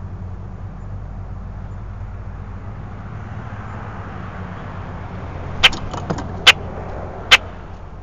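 A steady low hum with a swell of rushing noise like a passing vehicle, then three sharp knocks less than a second apart near the end, with a few lighter clicks after the first.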